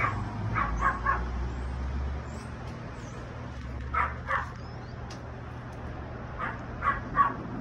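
A dog barking in short runs: a few barks at the start, two about four seconds in, and three more near the end, over a steady low hum.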